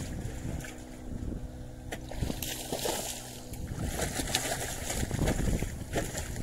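Water sloshing and lapping against a small wooden boat at sea, with some wind.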